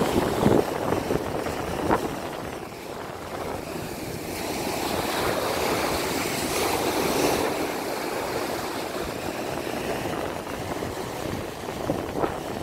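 Sea waves washing onto the beach, with wind on the microphone: a steady rush of noise that swells in the middle and eases off again.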